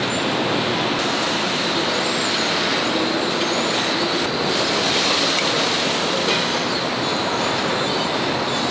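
Steady din of a tractor assembly line: an even mechanical hiss and rumble that holds at a constant level.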